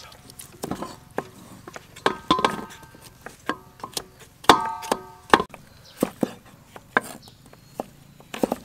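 Cleavers chopping fresh coconut meat on a wooden chopping board: irregular sharp knocks of blade on wood. Around two seconds in and again from about four to five seconds in, a short steady ringing tone sounds over the chopping.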